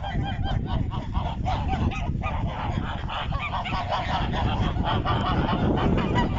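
A flock of grey domestic geese honking, many short calls overlapping continuously, over a steady low rumble.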